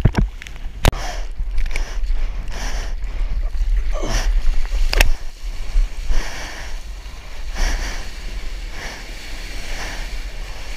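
Water rushing and splashing along a surfboard riding a small wave, with wind buffeting the microphone in a heavy low rumble. Two sharp smacks, about a second in and near the middle.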